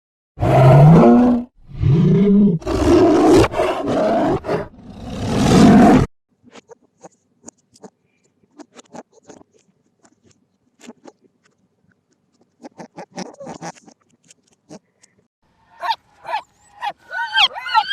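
An animal roaring: about four loud, long roars in the first six seconds, each sliding up and down in pitch, then faint scattered clicks and rustles. Near the end comes a quick run of short, high yelping calls.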